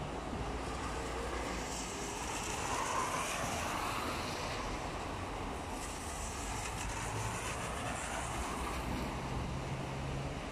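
Cars driving along a rain-soaked street, their tyres hissing through water on the wet asphalt. The hiss swells and fades twice, over a steady background of wind and traffic noise.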